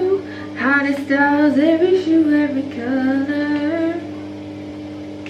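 A woman singing a few lines of a pop song unaccompanied, her voice gliding smoothly from note to note and stopping about four seconds in, over a steady low hum.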